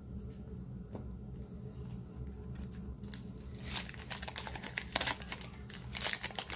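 A 1991 Fleer baseball card wax pack's wrapper crinkling and tearing open, a quick irregular run of crackles starting about three and a half seconds in, over a low steady hum.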